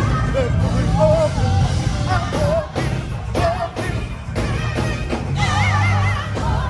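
Loud live rock music with a singer; about five and a half seconds in, a held note wavers with vibrato over a heavy low bass.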